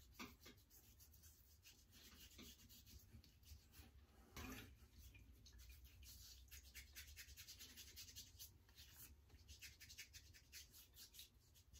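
Faint, quick rubbing strokes of fingertips working pre-shave into stubbly cheeks and jaw, a soft scratchy brushing of skin and whiskers.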